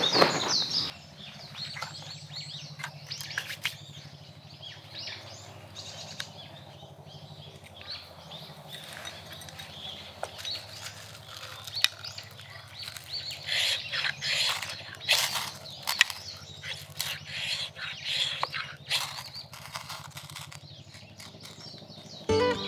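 Gloved hands scraping in loose soil for about the first second, then a knife spine scraped again and again down a ferrocerium rod to throw sparks onto wood shavings: a string of short, sharp scrapes, thickest past the middle.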